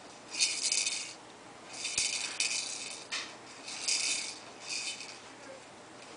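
A baby shaking a rattle toy on an exersaucer's play tray: several separate bursts of rattling, each under a second long.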